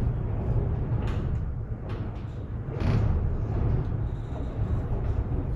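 Typhoon wind buffeting a high-rise window: a steady low rumble with gusts rising and falling.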